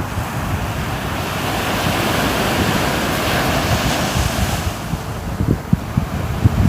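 Sea waves washing on the shore: one wave swells to a hiss about a third of the way in and drains away near two-thirds. Wind buffets the microphone with a low, uneven rumble throughout.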